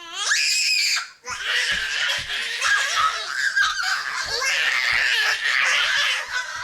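A toddler's high-pitched vocal rising sharply in pitch, a child's imitation of a lion's roar. After about a second it gives way to young children laughing and squealing, with short dull thumps underneath.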